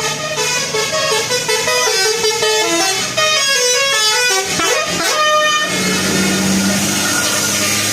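Bus 'telolet basuri' musical air horn playing a quick melody of stepping notes, with a swoop down and back up in pitch near the middle, then settling into a steadier held tone in the last two seconds.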